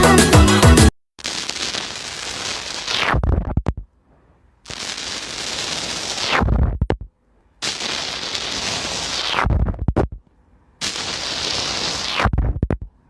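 Background music that stops about a second in, then four short bursts of slime being squeezed and poked, each a dense crackling and popping two to three seconds long, with a low thump at its end and a short silence between.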